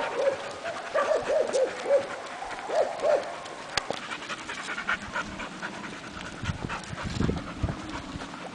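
A dog panting, with short, high, whimpering notes repeated through the first three seconds. A few low thuds come near the end.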